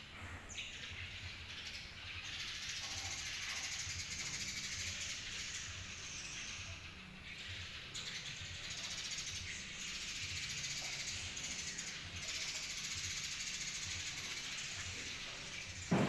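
Dense, continuous high-pitched chattering of many small birds, with a single thump at the very end.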